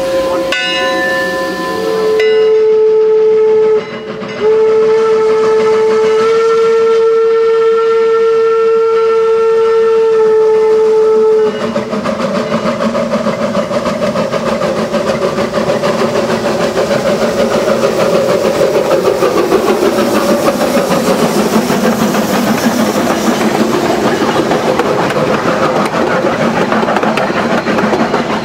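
Eureka & Palisade No. 4, a wood-burning 1875 Baldwin 4-4-0 steam locomotive. It rings its bell briefly, then sounds its steam whistle: one short blast, then a long steady one of about seven seconds. Once the whistle stops, the locomotive's fast, loud exhaust chuffing runs on as it works its train away.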